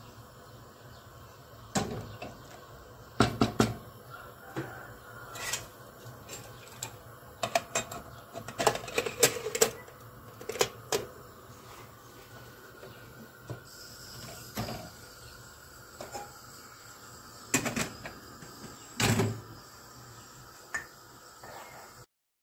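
Wooden spoon knocking against a stainless steel pressure cooker pot, and the metal clatter of the cooker's lid being handled and fitted, heard as scattered sharp clanks and knocks. A faint steady hiss sets in about halfway through.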